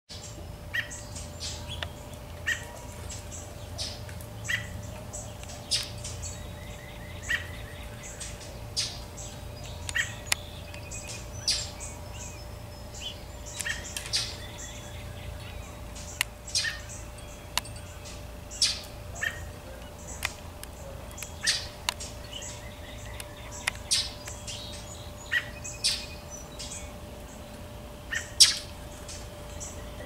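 American robin and northern mockingbird giving alarm calls: short, sharp calls repeated at irregular intervals, roughly one a second, some of them harsh and buzzy.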